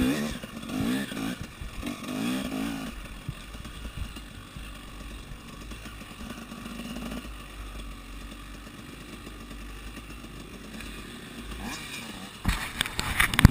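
KTM 300 EXC two-stroke engine revving in a few short throttle blips, then running quietly at low revs as the bike rolls slowly. Near the end come several sharp knocks and clattering close to the microphone.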